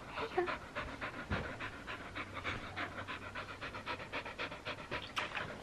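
A labradoodle panting with its mouth open, in quick, even breaths held close to the microphone.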